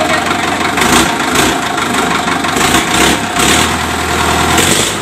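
Ford/New Holland 6610 tractor's four-cylinder diesel engine running at idle, a steady mechanical rattle with a thin whine over it and several brief louder rushes of noise.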